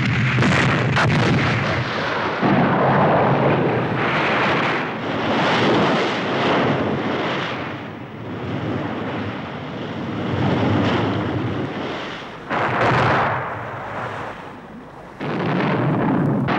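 Heavy naval guns firing and shells bursting: a string of loud booms, some close together, each rolling on for a second or more before fading.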